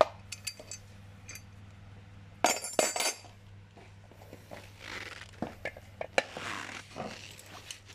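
Steel parts and screws of a bicycle baby seat being handled on a wooden table: scattered metallic clicks, a cluster of ringing metal clinks about two and a half seconds in, then rubbing and sliding with a few more clicks as a steel bar is picked up. A steady low hum sits underneath.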